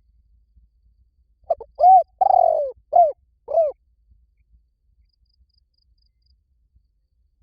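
Spotted dove cooing one phrase of five notes about a second and a half in: a short note, an arched coo, a long falling coo, then two short arched coos.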